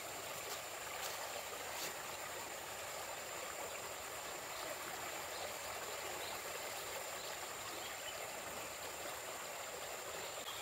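A muddy stream flowing steadily, with a faint steady high whine above it and a few soft ticks in the first two seconds.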